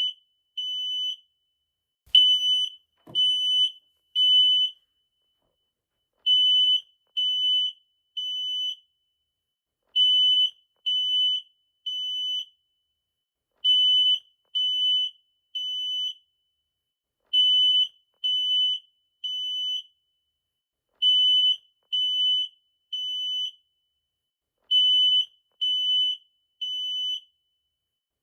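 Smoke alarm sounding a high-pitched beep in groups of three, each group a few seconds apart: the temporal-three pattern that signals smoke or fire. The first beep of each group is the loudest.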